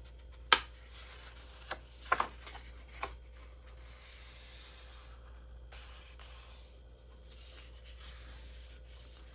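Cardstock folded along a score line: one sharp crack as the fold goes over, a few crinkles and ticks, then fingers rubbing along the crease to flatten it.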